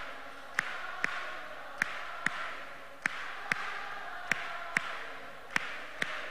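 Rhythmic handclapping in pairs: two sharp claps about half a second apart, repeating roughly every second and a quarter, over faint background noise.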